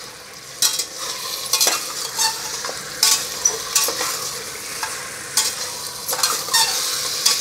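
Slotted steel spatula stirring mutton pieces, chopped tomatoes and ginger-garlic paste in hot oil in a stainless steel pressure cooker, with irregular scrapes against the metal pot over a sizzle that grows louder near the end.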